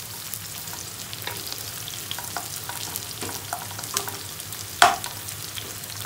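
Sliced onion and garlic sautéing in hot oil in a wok: a steady sizzle, with a wooden spatula scraping and tapping as it stirs, and one louder knock about five seconds in.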